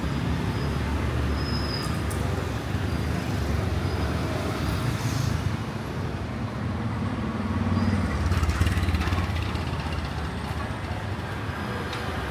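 City street traffic noise: a steady rumble of passing motor vehicles, swelling briefly about eight seconds in as one passes closer.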